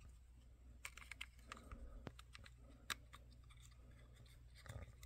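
Faint, scattered clicks and scratches of the GI Joe figure's plastic body parts being handled and fitted together.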